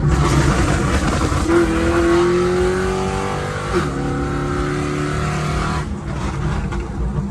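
Dodge Charger V8 engine at full throttle, its pitch climbing for a few seconds, dropping sharply at an upshift, then pulling again. After about six seconds the throttle is lifted and the engine note falls off.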